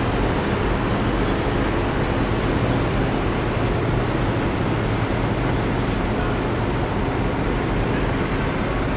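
Self-unloading lake freighter passing close by, its diesel engine running with a steady low rumble and hum.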